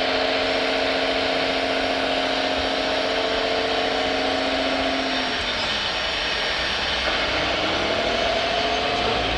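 The small electric motor of a radio-controlled construction model whining at a steady pitch, dropping away about five seconds in, then winding back up to the same whine over the last couple of seconds.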